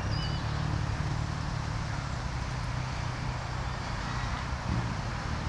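Steady rumble of road traffic on the road beyond the field.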